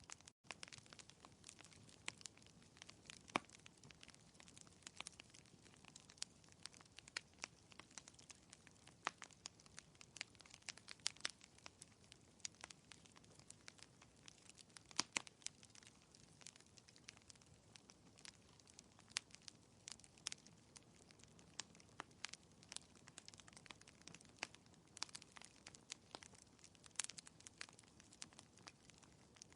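Soft crackling of a wood fire in a fireplace: irregular small pops and snaps over a faint steady hiss, a few louder pops about three seconds in and around fifteen seconds in.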